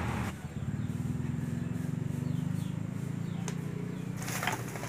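A steady low hum, then about four seconds in a hand grabs and crumples a plastic bag, a loud crinkling rustle.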